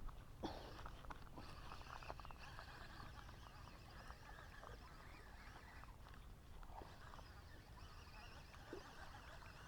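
Faint rural outdoor ambience: steady high-pitched chirping of small wildlife, with a few soft clicks in the first second or two.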